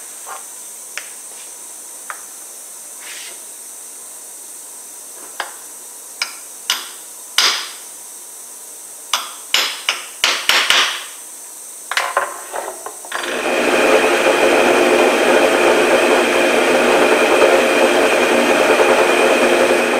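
Scattered light hammer taps on a steel nail set, marking the centre of a wooden leg blank. About thirteen seconds in, a drill press motor starts and runs steadily and loudly.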